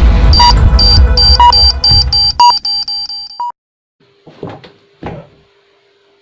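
Time-bomb countdown beeps, coming faster and faster over a heavy throbbing music bed, then cutting off abruptly about three and a half seconds in. After the sudden silence come two short breathy rushes of noise and a faint steady hum.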